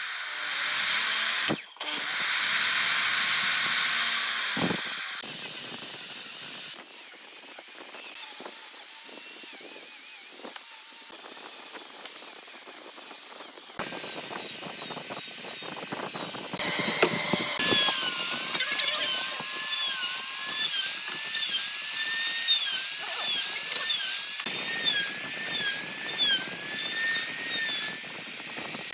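Power tools working wood, heard in several short edited segments: a loud steady hiss at first, then an electric drill whose whine rises and falls again and again in the second half.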